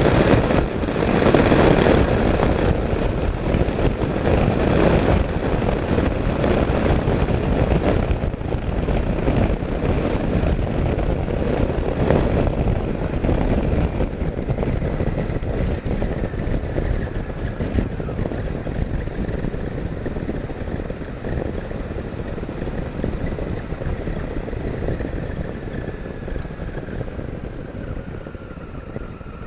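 Wind and riding noise from a Honda Africa Twin CRF1000L motorcycle, heard at a helmet-mounted camera while it travels fast. The rush is loud at first and gradually dies down as the motorcycle slows.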